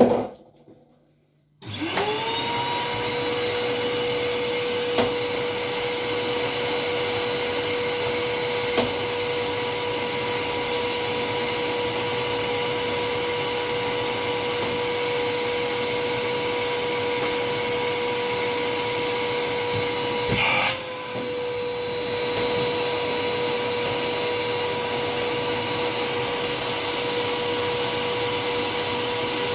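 Vacuum cleaner switched on about two seconds in and running steadily with a high whine, used in blowing mode to clear a refrigerator's blocked drain hole. A brief knock and dip in the sound come about two-thirds of the way through.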